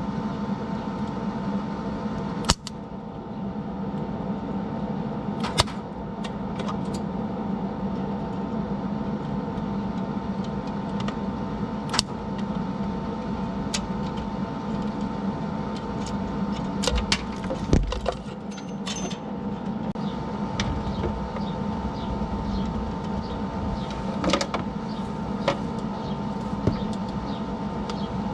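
A steady machine hum runs throughout, broken by scattered sharp metallic clicks and knocks from tools at work.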